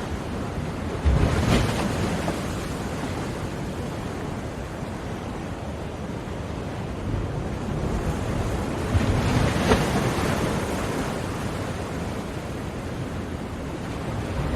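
Ocean surf: a steady wash of water with waves breaking twice, about a second in and again around nine seconds in.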